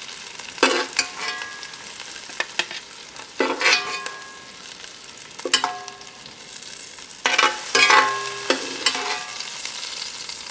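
Chicken thighs sizzling in a hot skillet as they are lifted out, with a metal utensil clinking against the pan again and again, each clink ringing briefly.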